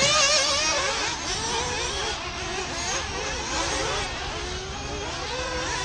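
Several nitro RC buggy engines racing at once, their high buzzing pitches overlapping and constantly rising and falling as they rev up and back off around the track.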